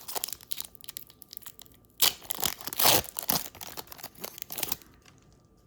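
Foil wrapper of a Pokémon trading card booster pack being torn open and crinkled, a run of crackles with the loudest tearing about two to three seconds in.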